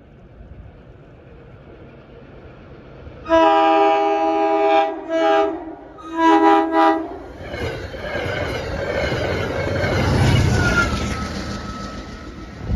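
CTrail commuter train sounding its multi-tone air horn in three blasts (long, short, long) as it approaches. It then passes close by at speed, with a loud rush of wheels and rail noise and snow being swept up.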